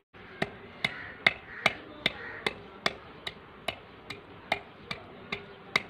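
Wooden pestle pounding garlic and ginger into a paste in a terracotta clay bowl: a steady run of about fourteen evenly spaced knocks, roughly two and a half a second.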